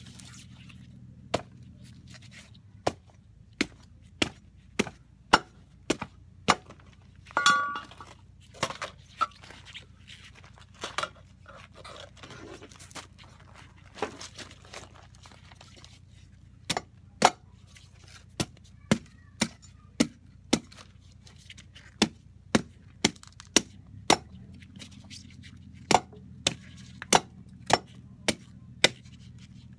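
Repeated sharp knocks of a heavy blade striking the hard shell of a fresh coconut, about one to two a second, with a sparser stretch in the middle.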